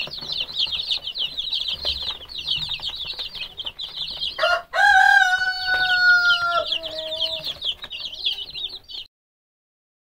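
A brooder full of chicks peeping constantly in quick high cheeps. About four and a half seconds in, a rooster crows once, a long call of about three seconds that drops in pitch at the end. All sound cuts off suddenly about nine seconds in.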